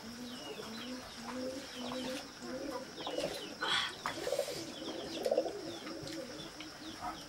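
A dove cooing in a long run of short, low, repeated coos, with small birds chirping higher up.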